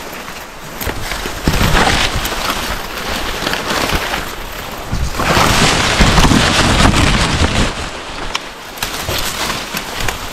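Dry corn stalks and leaves rustling and crackling as someone pushes through standing corn, the leaves scraping right against the microphone. Loudest about a second and a half in, and again from about five to seven and a half seconds in.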